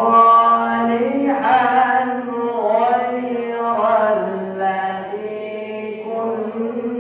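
A man chanting Quranic verses in Arabic in melodic recitation, with long held notes that glide up and down in pitch.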